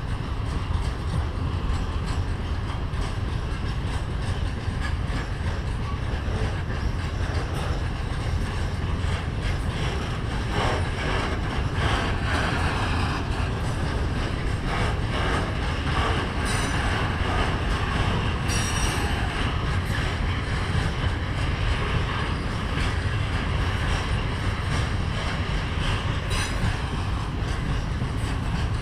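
Freight train wagons rolling steadily past, wheels clattering over the rails, with a few short high-pitched wheel squeals in the second half.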